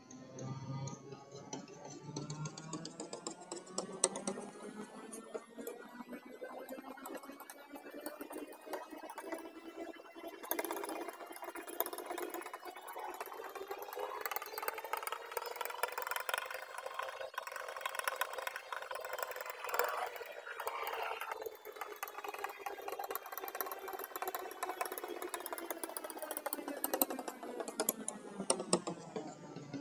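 Steel palette knife working thick wet paint against a flat surface, giving a continuous sticky squishing and scraping full of small crackling clicks.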